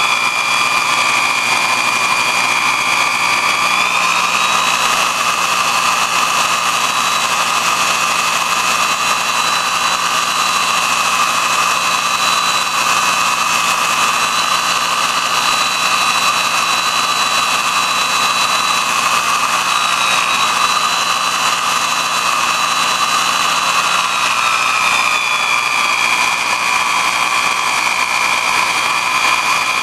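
Electric motor spinning a 5-inch abrasive sharpening disc, a steady high whine with a rough grinding hiss as a dull knife blade is held against it. The whine steps up in pitch about four seconds in and drops back near the end.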